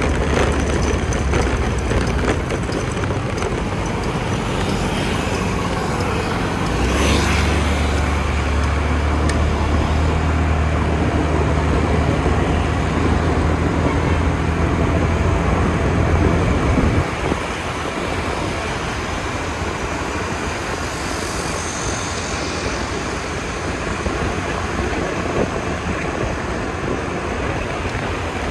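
City road traffic heard from a moving scooter: a steady mix of engine and road noise, with a low engine drone that grows louder about seven seconds in and drops away suddenly around seventeen seconds.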